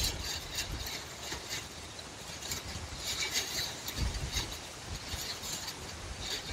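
Light clicks and clinks at an irregular pace over a low, gusting rumble of wind.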